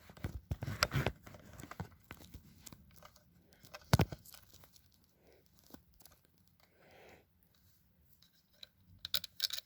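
Hands fumbling with a small personal burglar alarm and its pull tab: scattered clicks and rustling, busiest at first, with one sharp click about four seconds in. No alarm tone sounds.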